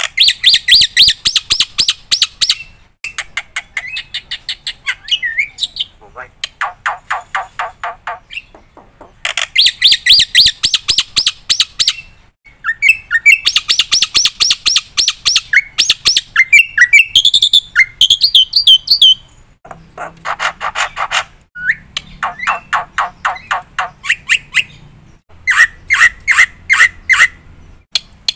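Black-winged myna (jalak putih) singing in full: bursts of rapid repeated chattering notes, about ten a second, each lasting two or three seconds and broken by short pauses, with a run of rising whistled notes midway.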